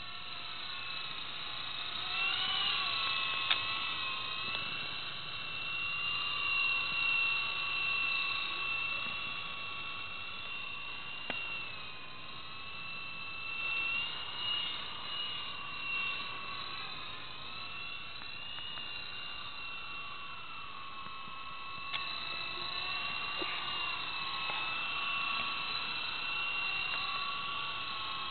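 E-flite Blade 120 SR fixed-pitch electric RC helicopter in flight: a high-pitched whine from its motors and rotors that rises and falls in pitch. On a fixed-pitch helicopter, head speed follows the throttle as it climbs and descends.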